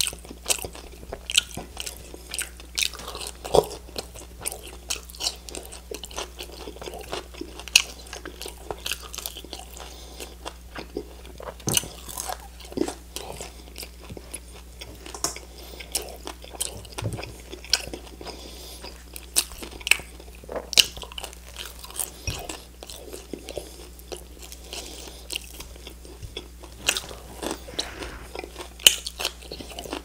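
Close-miked chewing and biting of crispy fried chicken wings: sharp, irregular crunches of the coating, a few every second, over a low steady hum.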